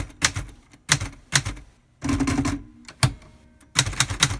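Keys of a 1958 Hermes Ambassador manual typewriter striking the platen one at a time in an irregular string of sharp clacks, with a brief buzzing mechanical whir about two seconds in.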